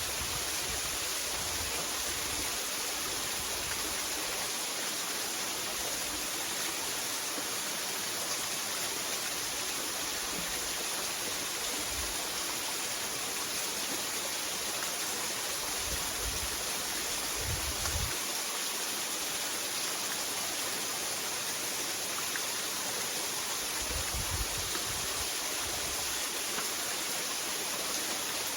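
Waterfall rushing steadily: an even, constant hiss of falling and running water. A few brief low rumbles come and go.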